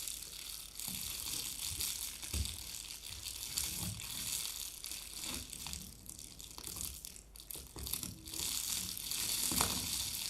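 Foley effect made by handling objects: continuous scratchy rattling with irregular soft low knocks.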